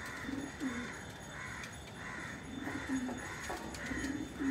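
Racing pigeons cooing in short, low notes, several falling in pitch. Behind them, a higher bird call repeats about twice a second.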